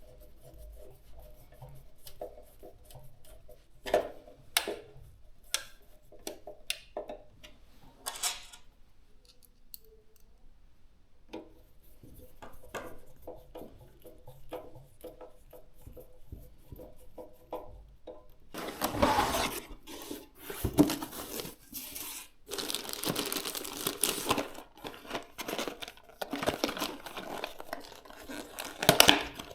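Scattered small clicks and taps of parts being handled, then, from about two-thirds of the way in, plastic packaging crinkling and tearing, as when a PC component is unwrapped or its protective film peeled off.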